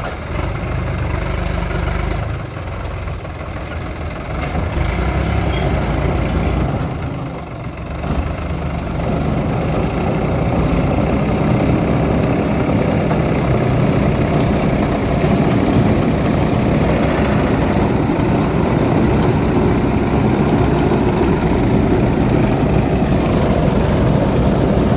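Heavy diesel engine running close by, a little quieter with brief dips in the first several seconds, then louder and steady.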